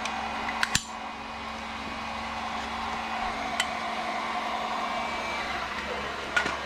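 A few short, sharp clicks and clinks from an airsoft pistol being handled, over a steady background hum.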